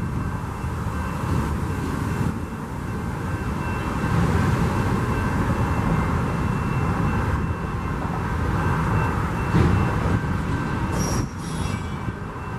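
Freight train of autorack cars rolling slowly past, with a steady rumble of wheels on rail and car bodies. A brief high wheel squeal comes near the end.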